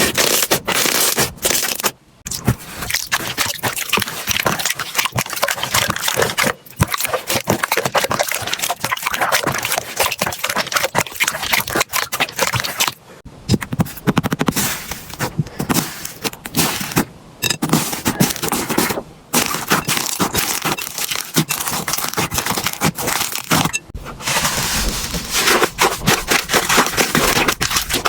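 Slime being squeezed, pressed and stretched by hand, giving dense crackling, popping and clicking with some scraping. Several brief drops to quiet break it into separate bouts.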